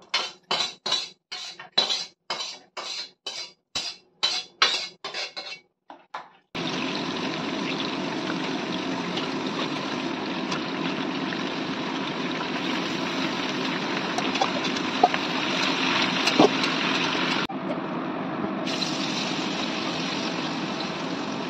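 Cut potatoes frying in oil in an aluminium kadai, a steady sizzle that starts about six seconds in. Before it comes a quick run of short clattering bursts, about two a second.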